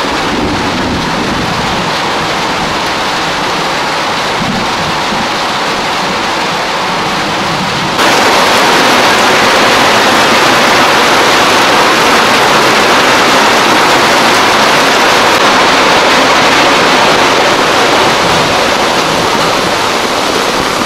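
Heavy rain falling steadily, with rainwater pouring off a roof in a stream into a metal barrel. About eight seconds in, the rain suddenly becomes louder and stays so.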